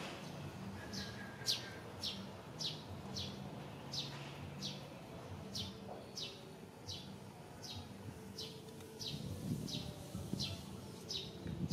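A bird repeating a short, high, falling chirp about twice a second, steadily, over a faint low hum.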